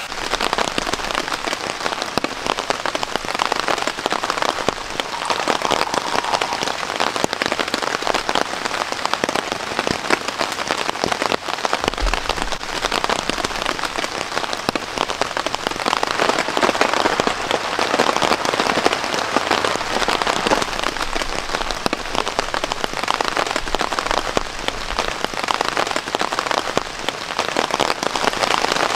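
Heavy rain falling steadily on a camping tarp and tent, a dense patter of drops.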